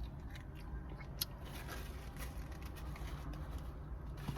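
Steady low hum of a car idling, with a few faint clicks, one sharper about a second in.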